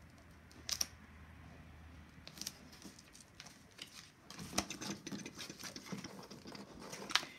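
Quiet handling of a paper sticker and magazine page: soft rustles and a few sharp little clicks and taps as fingers peel the sticker and press it onto the page.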